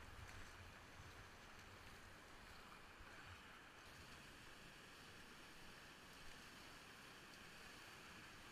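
Faint, steady rush of big whitewater rapids around a kayak as it is paddled through them.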